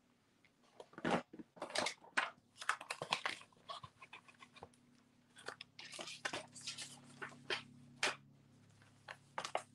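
Craft supplies being handled on a desk: irregular small clicks, taps and crinkly rustles, busiest about halfway through, over a faint low hum.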